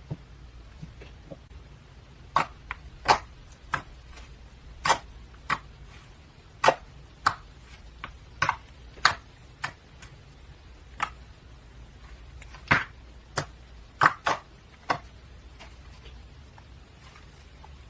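Slime being worked by hand, giving a string of sharp, irregular clicking pops, roughly one or two a second, with a short pause near the end.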